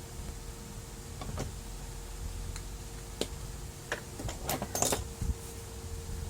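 Scattered light clicks and small knocks of laser printer parts being handled during disassembly, with a quick cluster of clicks about four to five seconds in, over a faint steady hum.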